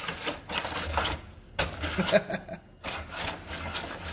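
Small 3D-printed PLA paper shredder working paper through its plastic cutters, a rough mechanical grinding and tearing in uneven strokes with two short pauses.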